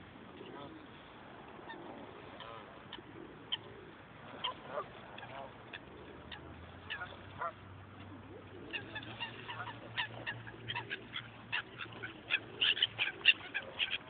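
Waterfowl calling: scattered single calls, then a fast run of loud, short calls over the last five seconds or so.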